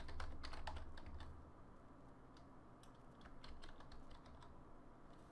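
Faint typing on a computer keyboard: a quick run of keystrokes, then scattered single taps.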